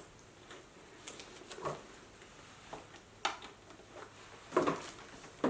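Soft, scattered clicks and rustles of a black caviar leather Chanel flap bag being handled and closed, about eight short sounds spread over a few seconds.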